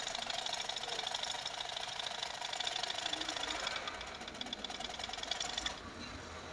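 Butterfly sewing machine stitching fabric at speed: a fast, even clatter of the needle mechanism that stops about six seconds in. It is a test seam after a repair for skipped stitches and thread breaking, and the machine is now sewing well.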